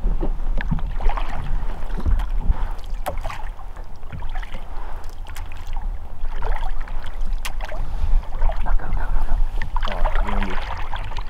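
Rowed river raft underway: water splashing and small knocks of the boat and oars, over a constant deep rumble. A short pitched sound near the end.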